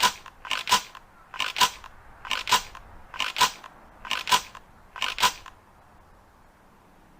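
Ithaca Model 37 pump-action shotgun's action being worked by hand: seven quick two-part metallic clacks, about one a second, then stillness.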